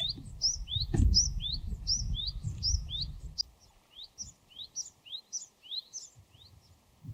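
Japanese tit (Parus minor) singing a repeated two-note 'tsupi-tsupi' phrase, a high note followed by a lower rising one, many times over. A low rumble underlies the first half and stops partway through, with a single knock about a second in.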